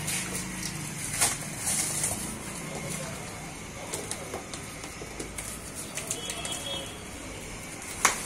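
Plastic stretch wrap crinkling and rustling as it is pulled and peeled off a cardboard box, with a few sharp crackles, the loudest near the end.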